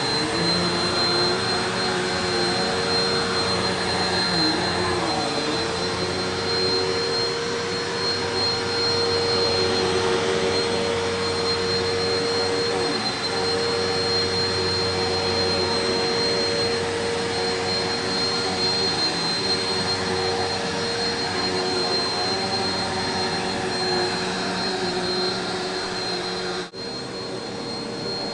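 Eureka PowerSpeed Pro Swivel Plus (NEU192A) bagless upright vacuum cleaner running steadily, a constant motor whine with a thin high whistle over the rush of air. A brief dip in sound comes near the end.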